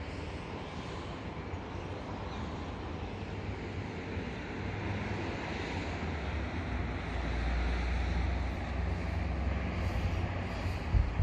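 A steady outdoor rumble that swells in the low end a little past halfway, with wind buffeting the microphone in uneven gusts near the end.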